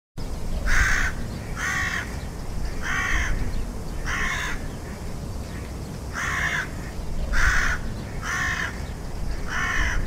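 Crows cawing: about eight harsh caws, roughly one a second with a short gap near the middle, over a steady low rumble.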